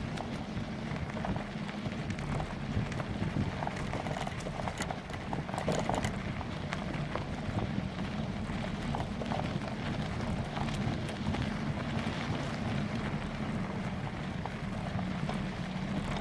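Bicycle ride over a rough dirt path: tyre rumble with the frame and the handlebar-mounted camera rattling in constant small knocks, and wind on the microphone.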